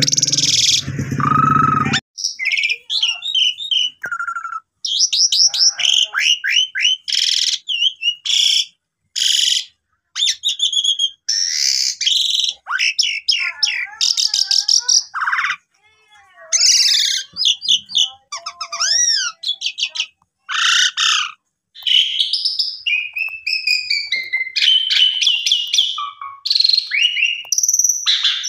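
Asian pied starling (jalak suren) singing an energetic, gacor song: a long run of varied loud whistles, rising and falling slurred notes, chirps and quick rattling phrases, broken by short pauses.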